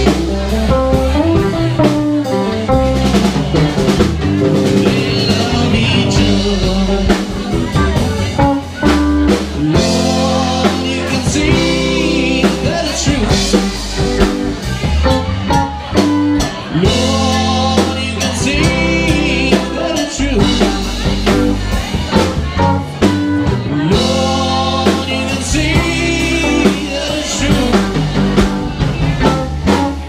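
Live band playing: electric guitars, bass guitar and a drum kit going steadily.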